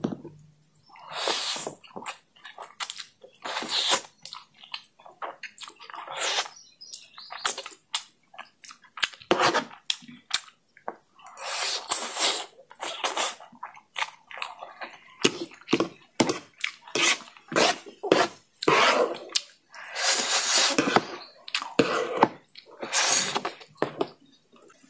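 Close-miked eating of chilli oil noodles: irregular chewing and mouth clicks, with several longer slurps of noodles lasting about a second each.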